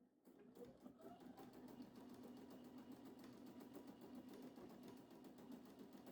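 Sewing machine starting up and stitching steadily: the motor whine rises in the first second, then holds under a fast, even patter of needle strokes. Faint.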